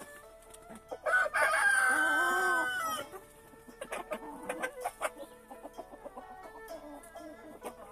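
A rooster crows once, a loud call held for about two seconds, followed by chickens clucking in many short, quick calls.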